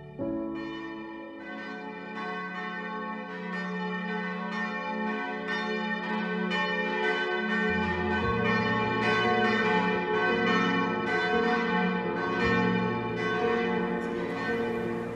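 Church bells ringing in a rapid peal, with fresh strikes about every half second blending into a continuous ringing. A low held tone comes in underneath about halfway through.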